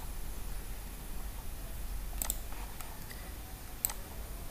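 Computer mouse clicking: two sharp single clicks about a second and a half apart, over a faint low steady hum.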